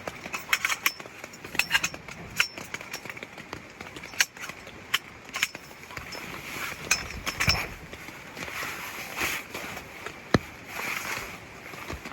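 Irregular sharp taps and clinks, a couple of them louder about seven and ten seconds in, over a steady hiss of rain and a mountain stream.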